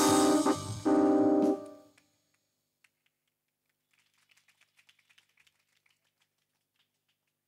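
A song's accompaniment ends on two held electronic-keyboard chords, each lasting about half a second, which die away within the first two seconds. Near silence follows, with faint scattered clicks partway through.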